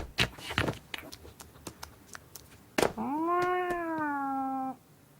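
A cartoon cat's long, drawn-out meow, voiced by a person; it rises and then slowly sinks over about two seconds. Before it come a few light taps and clicks.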